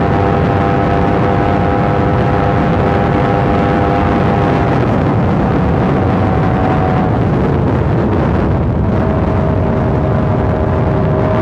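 Motorcycle running at a steady cruising speed under a loud, even rush of road and wind noise. The engine note holds steady, drops away about seven seconds in, and a new note climbs slowly near the end.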